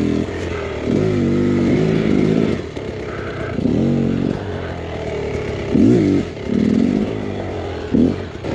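Dirt bike engine revving in a series of short throttle bursts, each rising and falling in pitch, about five in a row.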